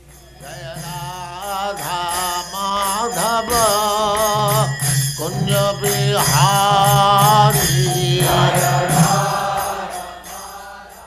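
Devotional chant sung over a steady low drone, with rhythmic sharp strikes keeping time; it fades out near the end.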